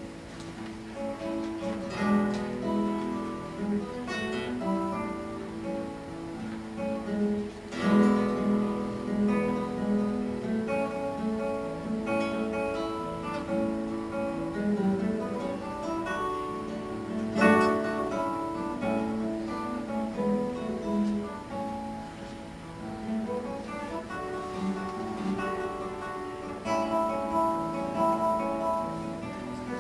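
Nylon-string classical guitar played solo fingerstyle: a continuous line of plucked notes, with loud full chords about eight seconds in and again near eighteen seconds.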